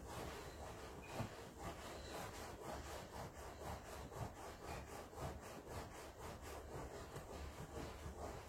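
Rhythmic back-and-forth scraping strokes, about three or four a second, kept up steadily by hand.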